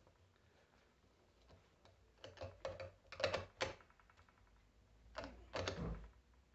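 Ratchet wrench clicking in short quick runs as it turns the nut on the terminal stud of a Prestolite starter motor's solenoid. There are two spells: from about two seconds in until nearly four, and again near the end.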